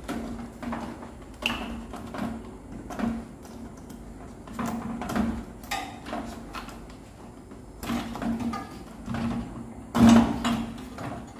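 Hands unplugging plastic wire-harness connectors from a microwave oven's control board and handling its sheet-metal housing: irregular clicks, knocks and rattles, the loudest about ten seconds in.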